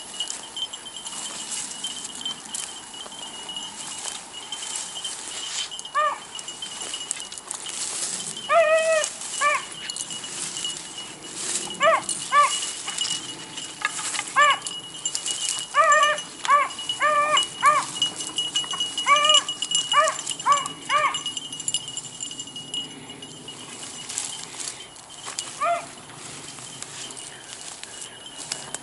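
Beagles baying in short, arched barks while trailing a rabbit by scent, at first scattered and then in quick runs of several bays, fading out near the end.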